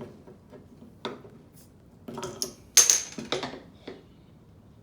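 A glass soda bottle being handled and opened: small clinks of glass and metal cap, with one sharp, loud burst about three seconds in and a few clicks after it.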